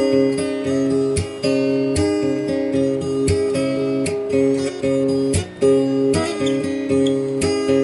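Inexpensive acoustic guitar strummed in chords, about two to three strokes a second, with the chords changing as it goes.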